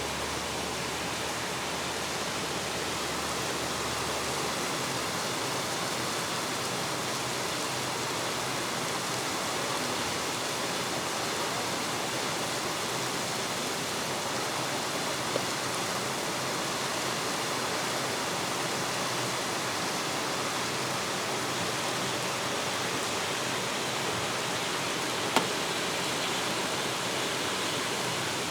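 Heavy rain falling, a steady hiss, with two brief sharp ticks, one about halfway through and one near the end.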